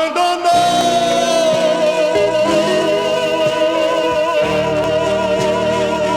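Brazilian evangelical gospel song between sung verses: a long held melody note with vibrato over the band's accompaniment. The lower accompaniment fills out about four and a half seconds in.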